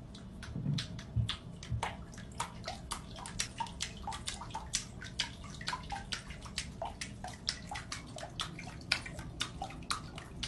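A cat pawing at the water in a filled bathtub: a quick, steady run of small splashes and plinking drips, about three or four a second.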